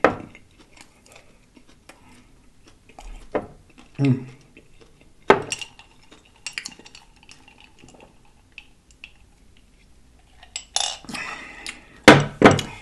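Scattered clinks and knocks of a drinking glass and a glass hot sauce bottle being handled and set down on a wooden board. The loudest short sounds come about a second before the end.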